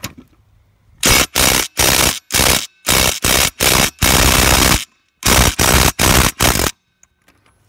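Ryobi brushless cordless impact driver hammering on a lug nut to loosen it, in about a dozen short trigger bursts with one longer burst near the middle.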